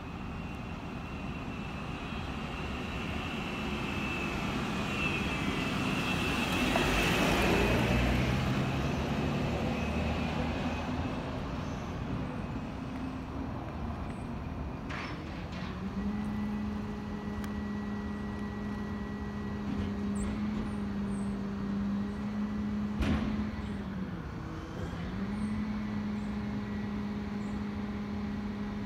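A road vehicle passes, its noise swelling to a peak about seven seconds in and fading away. About halfway through a steady low engine hum sets in and holds, dipping briefly in pitch a few seconds before the end. A couple of sharp clicks are heard over it.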